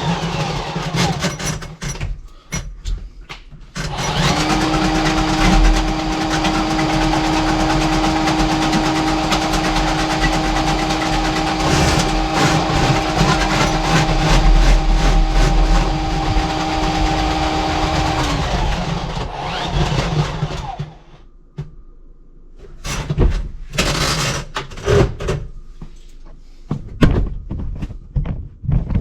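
A power tool's electric motor switches on about four seconds in and runs steadily with a hum and hiss for about fourteen seconds, then is switched off and winds down. Scattered knocks and clanks come before and after it.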